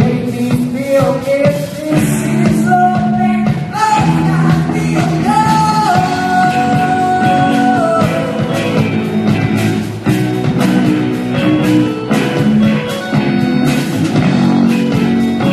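Rock band playing live, with electric guitars and drums. A singer holds long sung notes over the band, and the voice drops out about halfway, leaving the band playing on.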